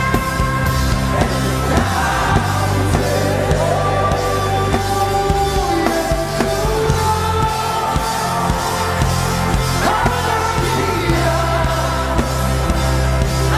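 Live gospel worship music: a band with sustained bass notes and a drum beat under a singing melody line.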